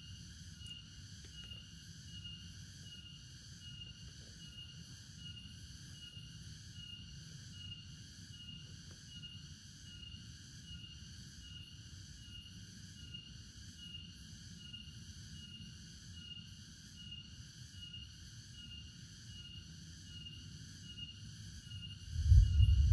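Forest insects chirping in a steady, evenly pulsing rhythm of roughly one and a half pulses a second, with a faint low rumble underneath. A sudden loud low rumble comes in near the end.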